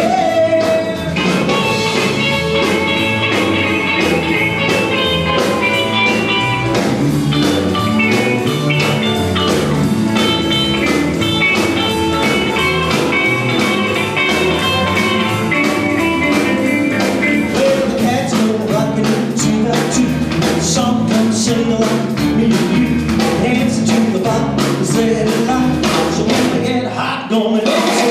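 Rock and roll music with guitar and singing over a steady beat.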